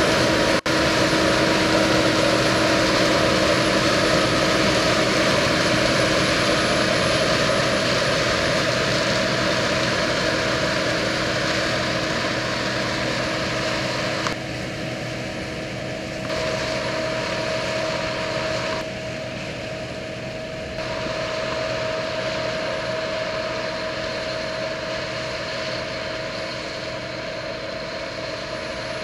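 Case IH 2388 combine harvester running while harvesting sunflowers: a steady engine and threshing drone with a sustained whine. It drops a step quieter about halfway through.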